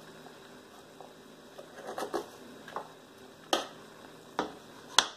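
Soft taps and knocks of chopped vegetables and cabbage leaves being gathered and pressed together by hand on a cutting board. About half a dozen come scattered over a few seconds, over a faint steady hum.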